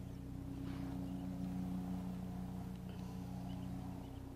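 Steady droning hum of a running motor, holding one pitch throughout.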